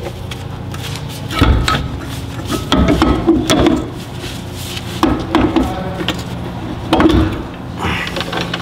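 Short clusters of metal knocks, clinks and rattles from hand tools and suspension parts being handled at a van's front wheel hub, in four bursts a second or two apart, over a steady low hum.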